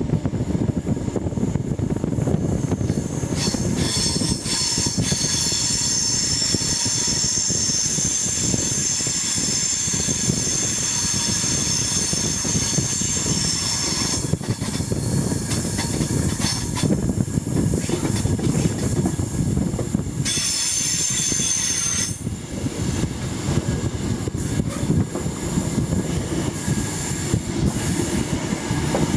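HST (InterCity 125) wheels squealing on the rails over a steady rumble of the train running. A high squeal sets in a few seconds in, stops about fourteen seconds in, and returns briefly a little after twenty seconds in.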